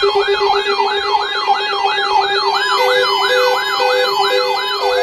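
Electronic siren yelping, its pitch sweeping up and down about three times a second over a steady tone. From about halfway, a beeping tone joins, about two beeps a second.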